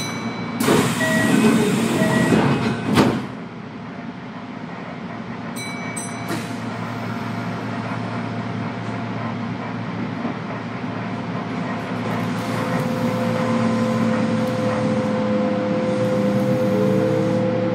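Kintetsu electric train in the cabin, pulling away from a station: a loud hiss ending in a sharp thud about three seconds in, then a steady running rumble, and from about two-thirds of the way through the motors whine with rising pitch as the train accelerates.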